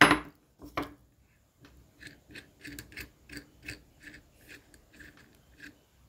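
Light metal clicks from hand-tool work on a three-wheeler brake master cylinder: a sharp knock at the start and another just under a second in, then a steady run of ticks about three a second.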